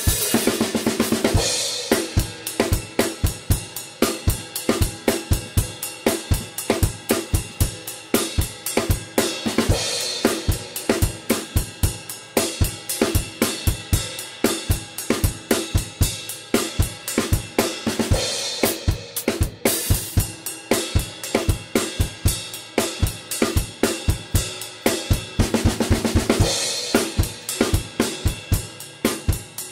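Acoustic drum kit played on its own in a steady, driving beat of bass drum, snare and hi-hat. Crash cymbals (Meinl) open each phrase, about every eight to nine seconds, and there is a short break in the beat about two-thirds of the way through.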